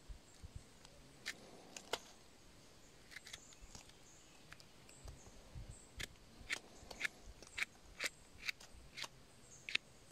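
Pocket knife cutting into a bolete mushroom's firm flesh: a series of faint, crisp little snips and clicks, few at first and coming faster in the second half.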